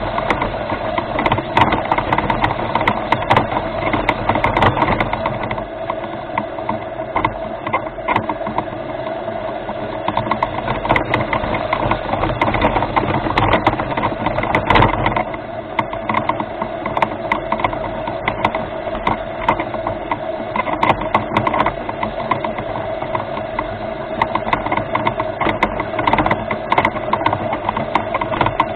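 Remote-controlled rover's electric drive motors and gearing whining steadily as it drives, with frequent clicks and rattles throughout.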